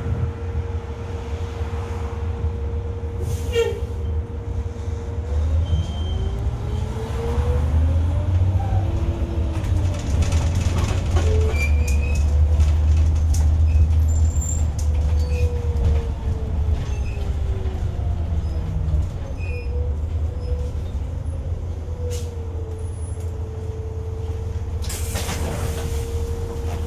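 City bus engine and drivetrain heard from inside the front of the cabin: a steady low rumble with a whine that rises and then falls in pitch as the bus speeds up and then slows for a stop. A hiss of air comes near the end.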